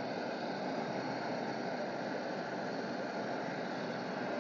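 Washing powder frying in hot oil in a kadhai, a steady sizzling and bubbling as the frothy mass cooks.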